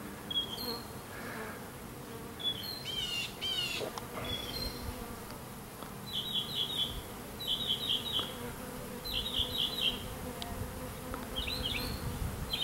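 A honey bee swarm buzzing in a low, steady hum while it is settled into a hive box. A small bird chirps over it, first with a few sweeping calls, then from about six seconds in with quick runs of three or four notes every second or two.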